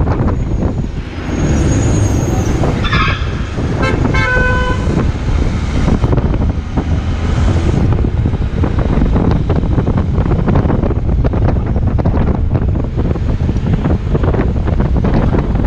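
Motorcycle engine running with wind buffeting the microphone while riding through traffic. About three seconds in, a vehicle horn toots twice in quick succession.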